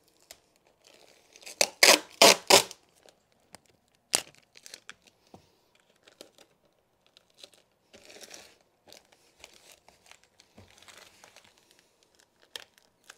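Tape pulled off a roll in three loud rips about two seconds in, then a sharp click and scattered soft crinkling and rustling as the tape is pressed down onto carpet underpad.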